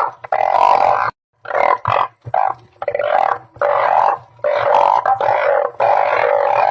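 Chorus of balloon frogs (Glyphoglossus molossus) calling, many loud overlapping drawn-out calls one after another, with a brief break a little after a second in.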